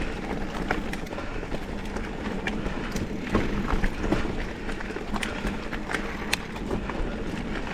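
Mountain bike rolling fast along a dirt singletrack: a steady tyre and trail rumble broken by many short, sharp clicks and rattles from the bike.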